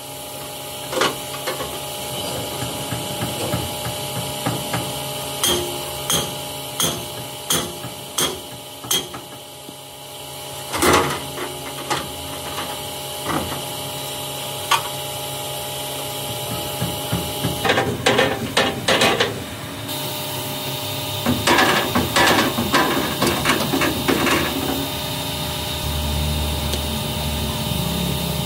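Hammer striking metal: a run of evenly spaced blows, each with a short ringing tone, then one heavier blow and later quicker bunches of strikes. A low steady hum comes in near the end.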